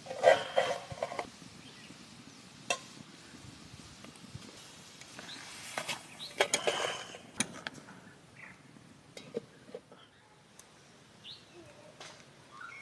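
Spoon scraping and clinking against a steel kadhai while stirring a thickening mixture, in two bursts of clatter: one at the start and one about halfway through. Faint bird chirps follow.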